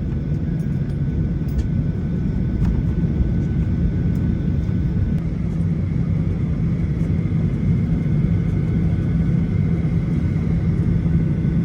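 Cabin noise of a Boeing 737-800 taxiing: its CFM56 engines at low thrust give a steady low rumble, with a faint high whine above it.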